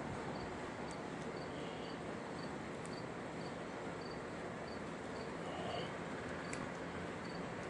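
Steady background hiss with a faint, short high chirp repeating evenly about two to three times a second, and a few small clicks.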